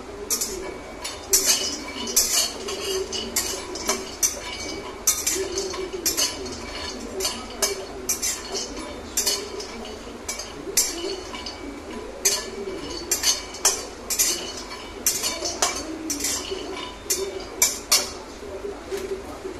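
Metal spatula scraping and clinking against a metal kadai while almonds are stirred in it during dry-roasting. The clinks are sharp and irregular, about one or two a second.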